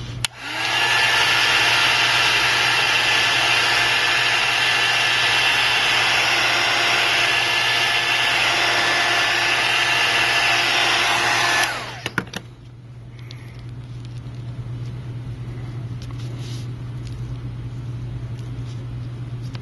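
Heat gun running with a steady blowing hiss and fan whine, starting about half a second in and switched off after about eleven seconds; a few clicks follow, over a low steady hum.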